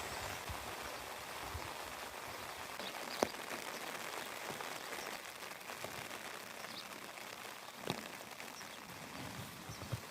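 Steady rain falling, an even hiss, with two sharp clicks about three seconds and about eight seconds in.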